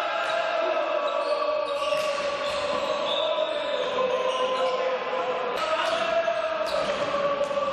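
Indoor hockey play on a sports-hall floor: sharp knocks of sticks and ball, over a steady chant of many voices held on long notes, echoing in the large hall.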